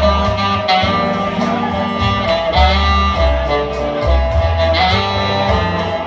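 Tenor saxophone playing a melody of held notes over a bass line.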